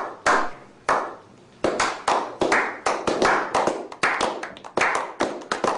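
A slow clap by a small group of men: single sharp handclaps with long gaps at first, then quickening and overlapping into faster, irregular clapping.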